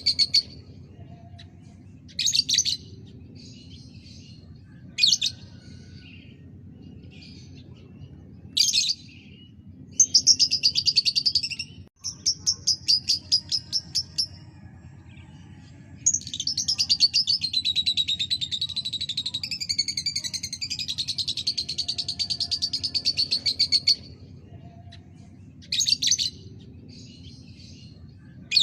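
Lovebird singing: rapid high chirping trills in short bursts every few seconds, with one long unbroken trill of about eight seconds past the middle.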